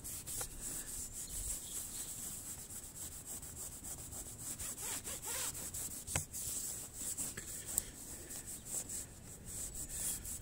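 Cloth with polishing compound rubbed back and forth by hand over a boat's fibreglass surface, a run of short scrubbing strokes, to polish off old sticker residue.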